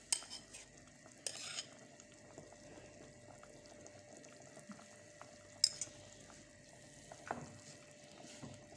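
A few scattered clinks and light scrapes of a spoon against a cooking pot, the sharpest about five and a half seconds in, over a faint steady kitchen background.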